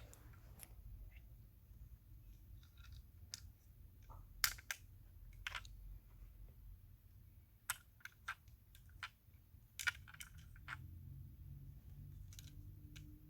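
Irregular small clicks and taps of diecast toy car parts and screws being handled and fitted by hand, with a few sharper clicks among them.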